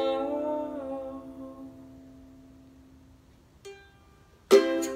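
A ukulele chord rings out and fades under a held sung note that trails off over the first couple of seconds. Near the end, a single soft pluck is followed by a sudden loud strummed ukulele chord.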